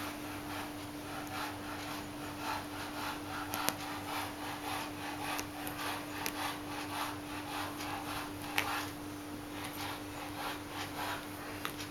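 Kittens' paws and claws scratching and rustling on a fabric bedspread as they play, in irregular soft strokes with a few sharp clicks, over a steady low hum.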